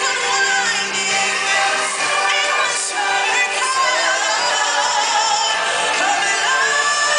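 Live stage-show music with singers, voices carrying a sung melody over a full musical accompaniment through the sound system.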